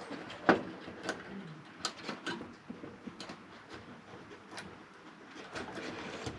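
Small, irregular clicks and taps of parts being handled and fitted back into a dryer motor switch, the sharpest about half a second in.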